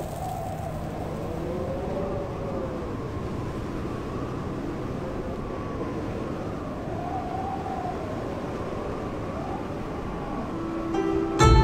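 Wintry wind howling, its pitch slowly rising and falling over a steady rushing hiss. Near the end, plucked-string music comes in with a loud low note.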